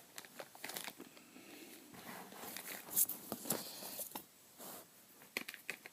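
Faint handling noise from bike crank parts and their packaging: light rustling with a few scattered clicks.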